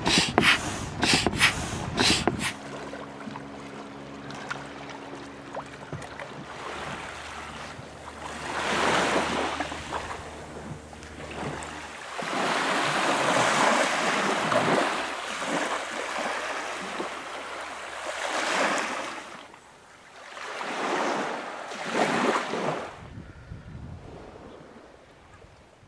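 Small waves washing onto a shallow beach, swelling and falling away every few seconds, with wind on the microphone. In the first couple of seconds there are several loud sharp knocks, then a steady low hum for a few seconds.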